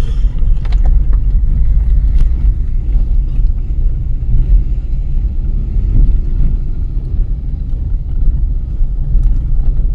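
Vehicle on the move: a loud, steady low rumble of engine and road noise with a few faint knocks.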